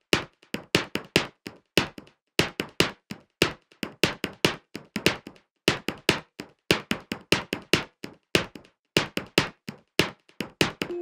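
A dry, looped percussion pattern of sharp knocks and clicks, about three or four hits a second in short groups with brief gaps, with no melody. It is the bare percussion opening of an electronic track.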